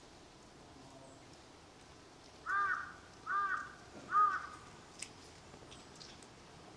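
A crow cawing three times, about a second apart, each caw short and harsh, with faint small-bird chirps in the background.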